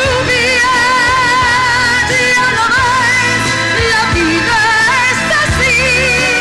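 Pop ballad: a woman's voice holds long notes with a strong vibrato over bass and a full band.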